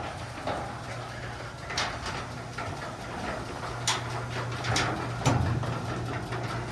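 Garage door opener motor running with a steady hum as the sectional door travels on its tracks, with rollers and panels clicking and rattling now and then. It is a test run of the door after its lift cable was put back on the pulley.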